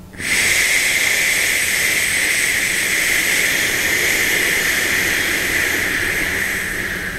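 A person making the qigong liver healing sound "shu": one long whispered "shhh" breathed out, starting abruptly and held for about seven seconds, easing off slightly near the end.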